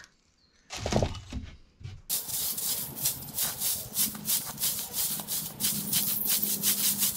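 Twig besom broom sweeping bare earth and leaf litter: a quick, even run of scratchy brushing strokes, several a second, starting about two seconds in. A brief voice is heard about a second in.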